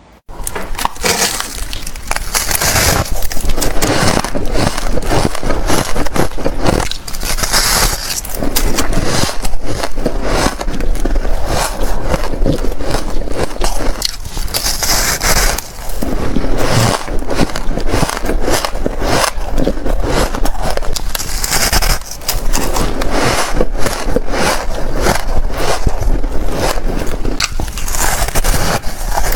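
Close-miked crunching of compacted, powdery shaved ice being bitten and chewed: a continuous dense crackle, with sharper crunches every few seconds.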